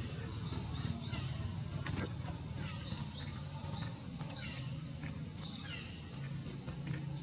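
Birds chirping: short, quick high chirps that drop in pitch, coming in clusters of two or three about once a second, over a low steady hum.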